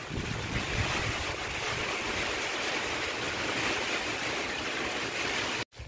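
Steady rain falling, an even hiss heard from under a shelter roof, cutting off suddenly near the end.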